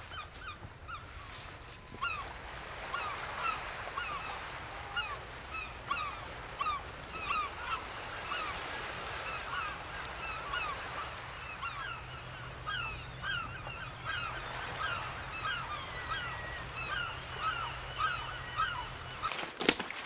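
A flock of birds calling, many short hooked calls a few a second, overlapping, over a low steady rumble. A single sharp click near the end.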